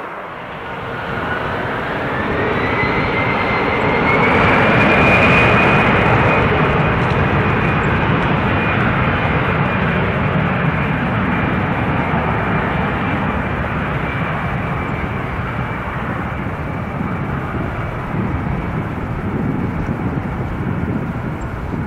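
Airbus A320 jet engines spooling up to takeoff power. A whine climbs in pitch over the first few seconds as the engine noise swells. It then settles into a steady jet noise that slowly eases as the airliner rolls away down the runway.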